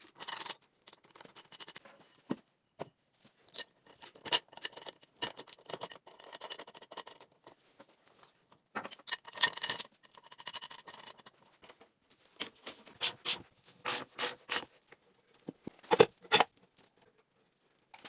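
Workbench handling sounds: irregular clicks, knocks and short scrapes as wood pieces and tools are moved and set down, with the sharpest knocks near the end.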